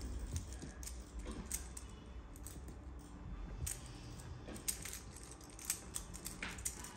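Irregular light clicks and clinks of small objects being handled, over a low hum.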